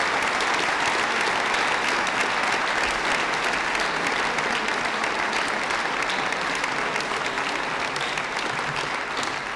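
A large seated audience applauding steadily in a sports hall after a recited poem, then fading out near the end.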